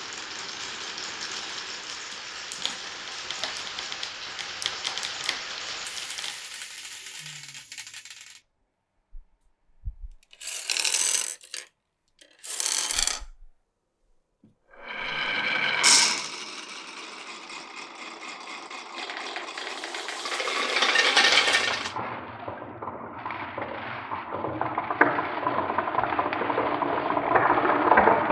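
Glass marbles rolling and clattering along a wooden marble run's rails and chutes, with many small clicks as they hit joins and each other. The sound comes in several pieces: a long roll, a few short bursts separated by total silence, then rolling again with a sharp click and a louder clatter near the end.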